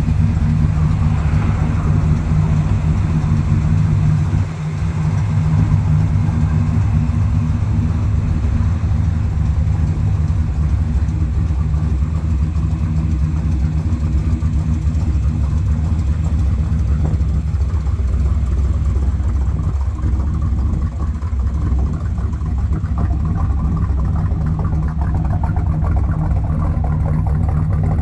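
1956 Chevrolet Bel Air's engine idling steadily.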